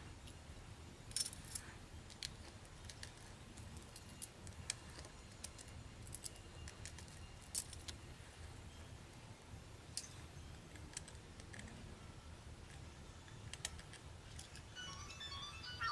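Sparse, irregular clicks and light clatter from a partly stripped Nikon Coolpix AW110 camera body and small hand tools being handled, over a low steady hum.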